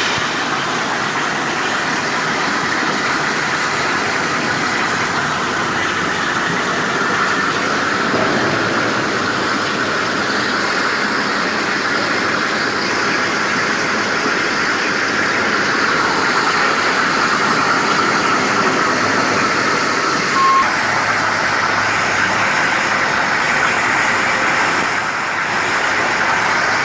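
Steady rushing noise of a CNC strip-cutting machine's oxy-fuel gas torches cutting steel plate, with a short beep about twenty seconds in.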